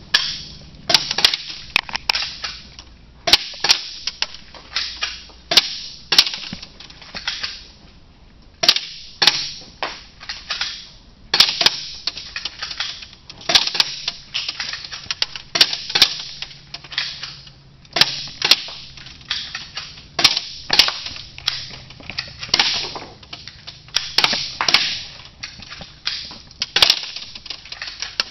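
Airsoft gun shooting BBs into a homemade plywood and fiberboard trap target: a long irregular string of sharp cracks, about one or two a second, each trailing off briefly.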